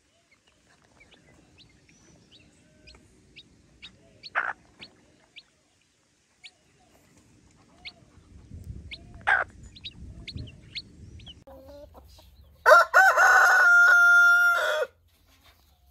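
Chicks peeping in thin, short high notes around a hen, with a couple of louder short calls among them. Near the end a rooster crows loudly once, a held call of about two seconds.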